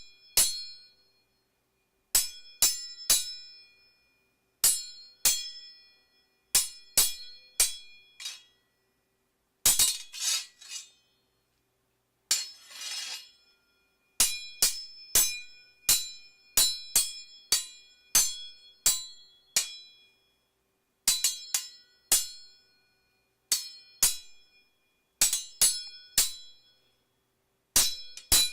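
Sword clash sound effects: steel blades striking with a bright metallic ring, in quick groups of three or four clangs separated by short pauses. Near the middle come two longer scraping sounds of metal sliding on metal.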